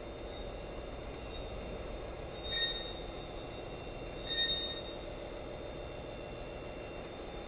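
A train running on the track, a steady rumble, with two short high squeals about two and a half and four and a half seconds in.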